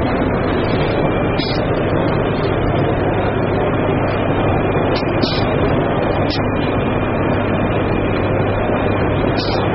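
Steady background din of a busy exhibition hall: a dense, even rumble and hiss with a faint thin steady tone through it and a few short ticks.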